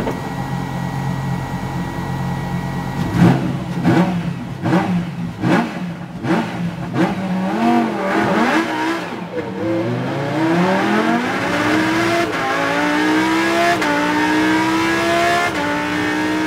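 Lamborghini Huracán Super Trofeo race car's naturally aspirated V10, heard from inside the cockpit. It sits at a steady idle, then gives a run of short sharp revs about every half second on the grid. About eight seconds in it launches at full throttle, the pitch climbing through the gears with a sudden drop at each of three upshifts.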